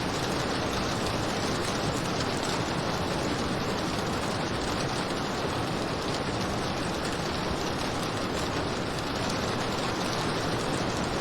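Steady rain falling, an even, unbroken wash of noise with no separate drops, thunder or other events standing out.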